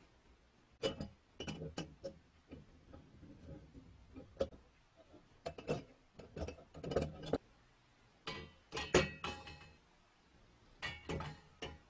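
Metal parts of a restored cast-iron and brass balance scale clicking, knocking and clinking in irregular clusters as they are fitted by hand. A few of the strikes, around two-thirds of the way in and near the end, ring briefly like the brass pans being set in place.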